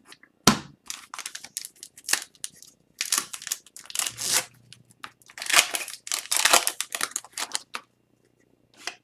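Trading card packs being handled: foil pack wrappers torn open and crinkled and cards slid and flipped, in an irregular run of short scrapes and rustles.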